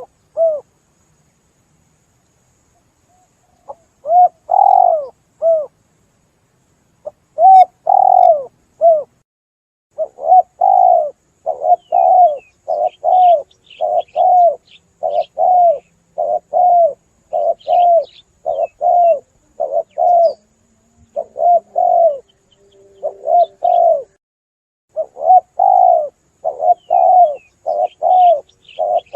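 Spotted dove (tekukur) cooing: repeated arched coo notes in short phrases, starting after a few seconds' pause and running on in a steady series from about ten seconds in. Faint high chirps sound above them.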